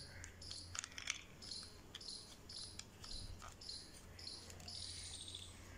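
A cricket chirping faintly and evenly, about two and a half chirps a second, over a low steady hum. A few soft clicks of plastic parts being handled.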